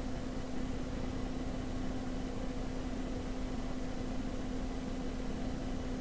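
Steady room tone: an even hiss with a constant low hum, with no distinct handling clicks or knocks.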